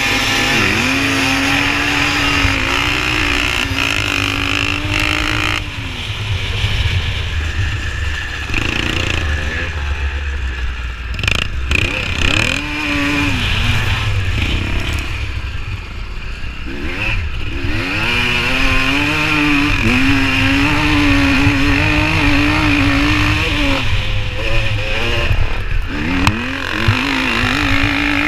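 Pre-1985 vintage motocross bike's engine racing across a grass track, heard from the rider's helmet camera. Its pitch climbs and drops again and again with throttle and gear changes, cuts back sharply about six seconds in, and holds higher and steadier for several seconds in the second half.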